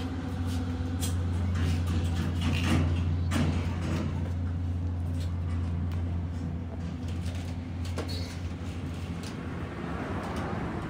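A steady low mechanical hum, with scattered sharp clicks and knocks over it.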